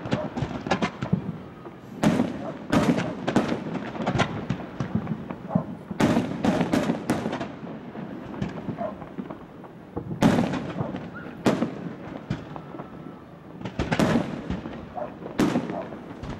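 Fireworks going off: sharp bangs in clusters every few seconds, with smaller pops between them.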